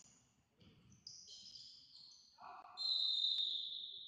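Sports shoes squeaking on a sports hall floor during futsal play: a run of high-pitched squeaks, the longest and loudest about three seconds in, with a single sharp knock partway through.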